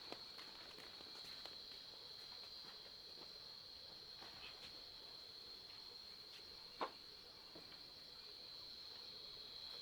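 Steady high-pitched chorus of insects, crickets, with a few faint scattered clicks and one sharp tap about seven seconds in.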